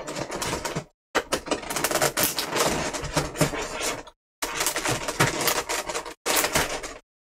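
Clear plastic blister pack crinkling and crackling as it is handled and pried open, a dense run of small clicks and crackles in several stretches broken by short dead silences.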